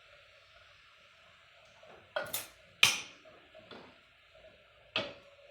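A metal utensil clinking against a cooking pot: a few sharp ringing knocks starting about two seconds in, the loudest near the middle, with one more near the end, over a faint steady hiss.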